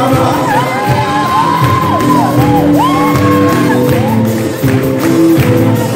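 Loud music filling a large hall, with a crowd singing along and shouting and whooping over it.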